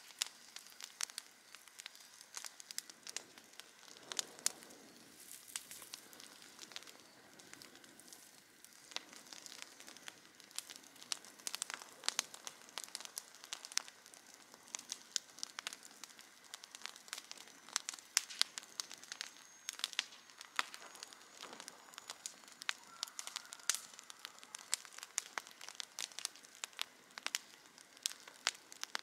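Campfire crackling, with dense, irregular sharp pops and snaps over a faint steady hiss.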